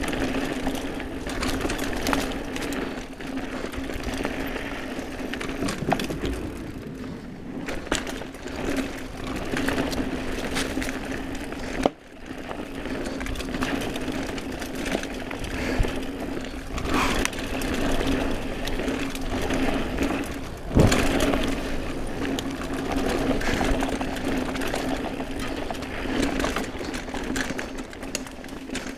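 Mountain bike coasting fast down dirt singletrack, its Hope Pro 4 rear hub's freewheel giving a steady buzz over the rattle of tyres, chain and frame. The buzz drops out for a few seconds in the first half, and there is a sharp knock about two-thirds of the way through.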